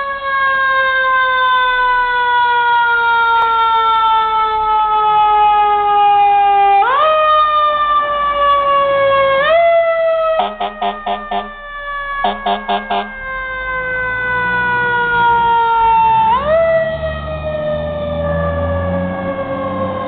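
Fire engine's mechanical siren wailing, its pitch sliding slowly down and then swept quickly back up several times. Two bursts of rapid horn blasts come about halfway through, and the truck's engine can be heard pulling away near the end.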